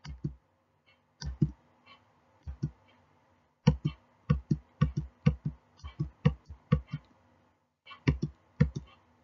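Computer mouse clicked again and again, mostly in quick press-and-release pairs: a few spaced clicks at first, a fast run of them in the middle, then two more near the end, each revealing the next answer on a slide.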